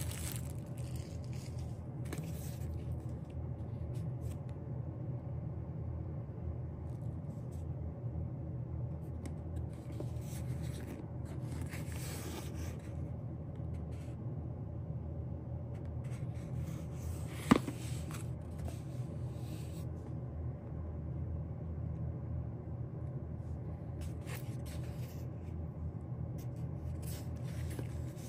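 Album packaging being handled and unpacked: bursts of paper and plastic scraping and rustling that come and go, with one sharp tap or click about seventeen seconds in, over a steady low hum.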